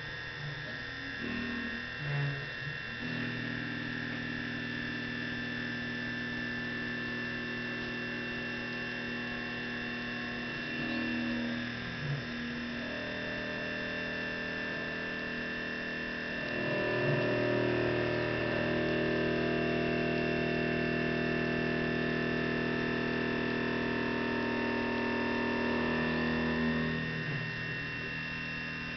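EMCO PC Mill 125 benchtop CNC mill running: a steady high spindle whine, under the hum of the axis drive motors, whose pitch changes in steps as the table moves from one feed to the next. It grows louder about two thirds of the way through and drops back near the end.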